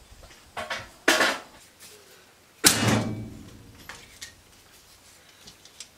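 A few sharp knocks and clunks. The loudest comes about two and a half seconds in and rings on briefly.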